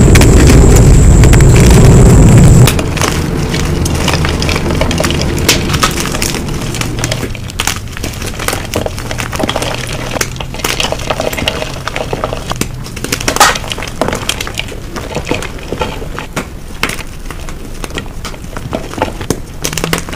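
Gym chalk being crushed and crumbled: many sharp, irregular crunches and crackles that slowly get quieter. For about the first three seconds a loud low rumble dominates, then cuts off suddenly.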